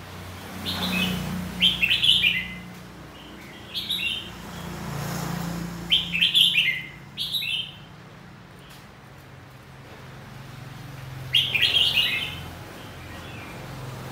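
Red-whiskered bulbul singing: short, bright, choppy phrases in quick runs of two or three, with pauses between runs. The loudest runs come about 2 s and 6 s in, and another about 12 s in.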